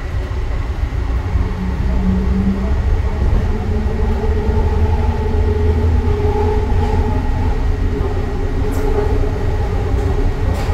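Interior running noise of an Everline light-rail car, a Bombardier ART train driven by linear induction motors, travelling at speed: a steady low rumble with a hum that wavers slightly in pitch.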